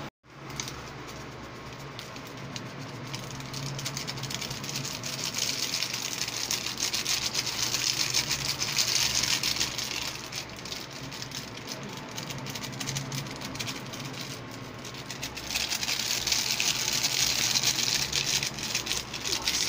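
Instant pancit canton noodles sizzling and crackling in a stainless steel pan on an induction cooker, louder in two stretches, about a third of the way in and again near the end, with a faint low hum underneath.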